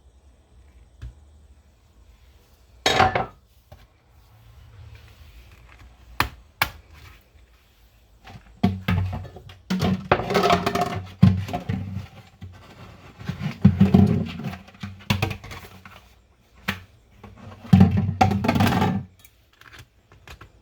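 Plastic gallon jugs of vinegar, conditioner and hot water being handled, with a few knocks, then shaken hard in repeated bursts, the liquid sloshing inside as the softener mix is blended.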